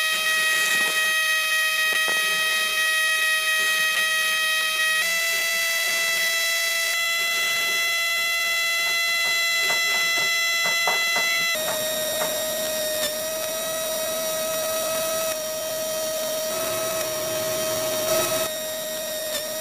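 Small electric motor running with a steady high-pitched whine. Its pitch shifts slightly a few times, and there are a few faint clicks midway.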